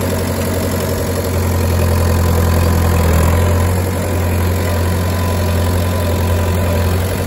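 Tractor engine running steadily with a low, even hum, swelling slightly for a couple of seconds about a second and a half in before settling back.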